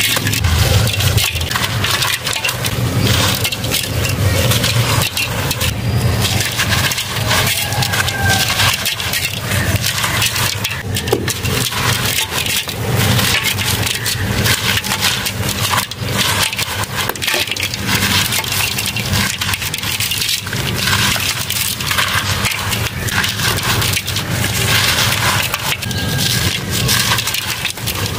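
Dry chunks of dirt and sand-cement crumbled by hand, a dense gritty crunching and crackling with loose grains pouring and rattling into a metal tub.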